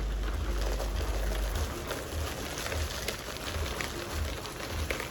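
Dry ring cereal pouring from the box into a large bowl: a dense, steady patter of small pieces landing.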